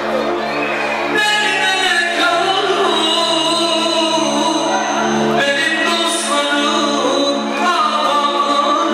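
A man singing live into a microphone over loud amplified band music, his voice carrying a wavering melody above a steady held low note.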